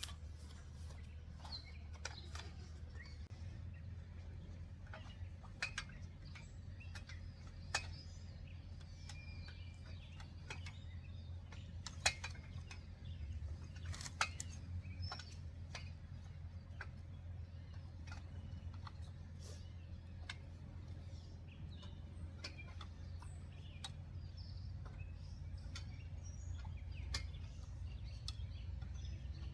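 Faint outdoor ambience with birds chirping now and then over a low steady rumble. Scattered light clicks and taps come from the trampoline's flexible rods being handled and fed into the frame; the sharpest click comes about twelve seconds in.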